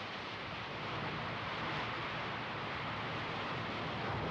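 Steady rushing noise of wind and sea along a warship's hull under way, even and without a break.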